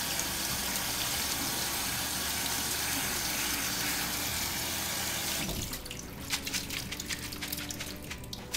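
Kitchen faucet running water over soaked wheat grain in a stainless steel sink, shut off about five and a half seconds in. After that come scattered light clicks as the wet grain is handled.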